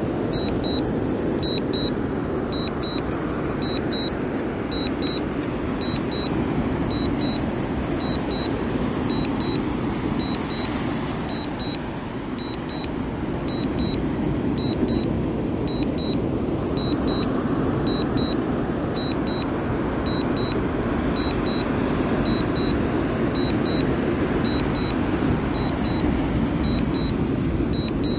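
Drone controller beeping in short high double beeps, about one pair a second, the alert that the DJI Mini 2 is in return-to-home, over a steady rushing noise.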